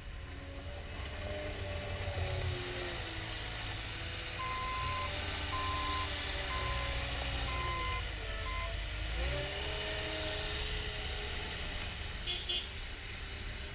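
Caterpillar 242D skid steer loader's diesel engine running, its speed rising and falling as the machine is worked. Near the middle, the back-up alarm beeps about five times, roughly once a second, as it reverses.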